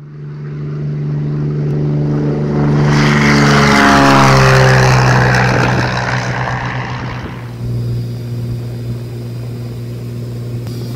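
Single-engine Cessna propeller plane taking off and passing close by: the engine note grows louder and drops in pitch as it goes past, with a rush of propeller noise. From about seven and a half seconds in, a steady engine drone heard from inside the cockpit.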